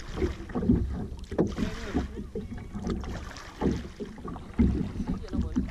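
Kayak paddling: a double-bladed paddle dipping and pulling through lake water in uneven strokes, with irregular splashes and gurgles of water around the hull.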